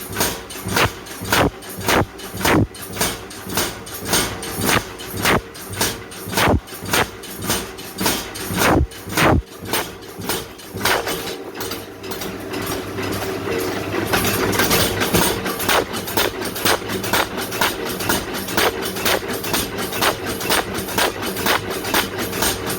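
Hammer blows on hot wrought iron, about one and a half a second, over a steady machine hum. About ten seconds in the blows stop and a steady rushing noise takes over.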